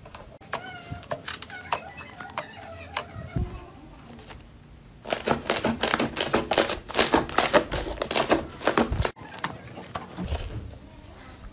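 Slime being worked by hand: quieter sticky stretching at first, then, from about five seconds in, dense crackling and popping as the slime is squeezed and pressed and air pockets in it burst.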